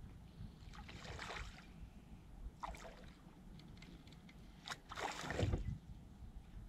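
Hooked smallmouth bass splashing at the surface as it is fought toward the boat: a few short splashes, the loudest about five seconds in, over a low rumble of wind on the microphone.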